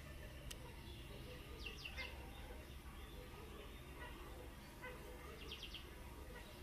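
Faint steady background hum with a few quick, high bird chirps: a short cluster about two seconds in and another about five and a half seconds in.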